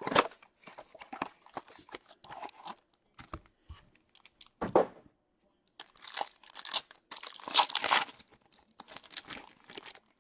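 Cardboard blaster box being handled and ripped open, with sharp crackles and clicks and one thump about five seconds in. From about six seconds in, foil trading-card pack wrappers are torn open and crinkled.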